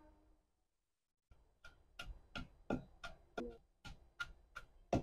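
Wooden pestle pounding in a kunda (mortar), crushing garlic and onion for a tadka: steady knocks about three a second, starting about a second in.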